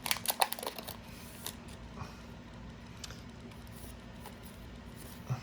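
Trading card packaging and cards being handled: a quick cluster of crinkles and clicks in the first second, then faint occasional rustling.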